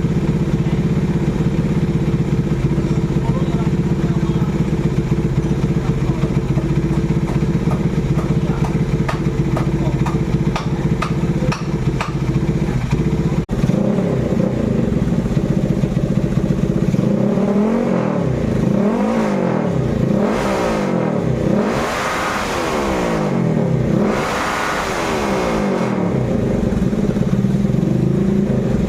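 Honda Tiger's single-cylinder four-stroke motorcycle engine idling steadily through an aftermarket racing exhaust, then revved up and let fall back several times in the second half.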